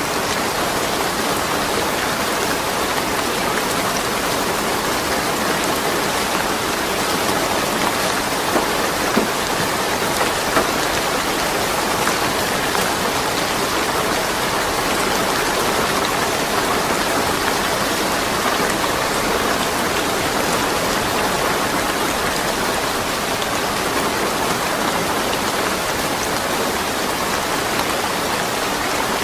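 Steady rain falling, with no thunder: an even hiss of dense drops on surfaces, a few sharper individual drop hits standing out about a third of the way through.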